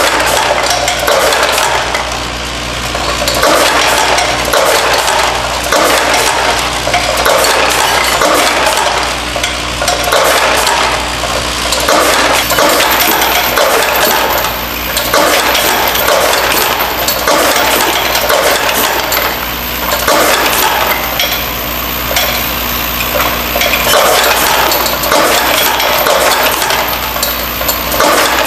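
Vibratory bowl feeder of a Delta Counter LCM22 piece-counting machine running: a steady low hum under the constant rattle and clink of brass fittings jostling in the bowl and feeding down the track.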